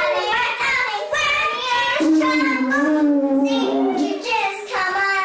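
A young child singing, holding long notes one after another.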